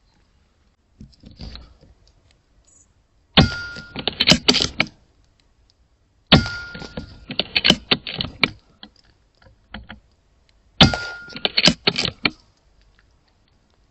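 Three shots from a .22 Airmaks Krait L PCP air rifle, a few seconds apart. Each is a sharp crack with a short ring, followed by a quick run of clicks.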